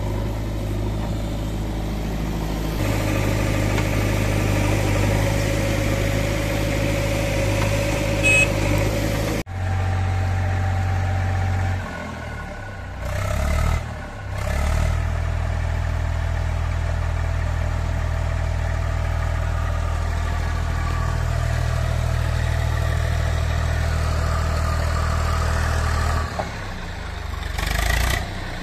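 Eicher 380 tractor's diesel engine running steadily, with abrupt changes in the sound several times.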